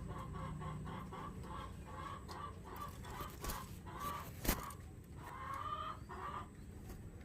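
A nine-day-old spotted dove nestling giving short, repeated peeping calls, about three or four a second, then a longer wavering call about five and a half seconds in. A single sharp click comes just before that longer call.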